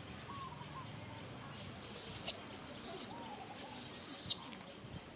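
Three short, high-pitched animal calls in quick succession, each ending in a falling sweep, with fainter soft rising-and-falling calls at a lower pitch.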